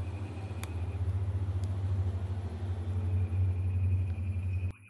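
Steady low rumble with a couple of faint clicks; it cuts off suddenly near the end.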